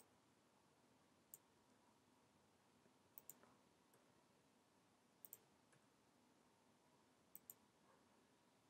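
Near silence broken by faint clicks of a computer mouse button, about every two seconds: two single ticks, then three quick double ticks.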